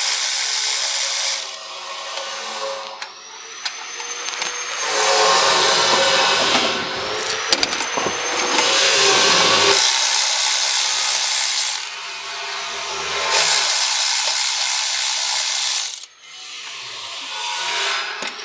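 Cordless electric ratchet with a 10mm socket spinning out the bolts of a Polaris RZR's primary clutch cover, in about five runs of one to three seconds each with short pauses between.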